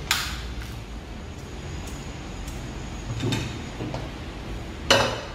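A portable butane gas stove being lit: a sharp click from the ignition knob at the start as the burner catches. Just before the end comes a louder metal clank as a wok is set down on the burner grate.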